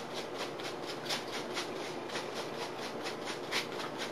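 Paintbrush scrubbing acrylic paint across a stretched canvas in quick, even back-and-forth strokes, about four or five scratchy brushes a second.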